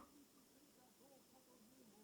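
Near silence: faint room tone in the pause between a sleeper's snores.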